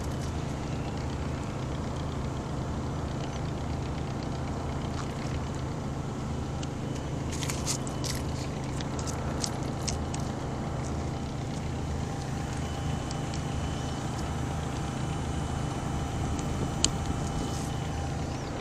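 An engine running steadily in the background as a low drone, with a few light clicks and taps in the middle and one sharp tick near the end.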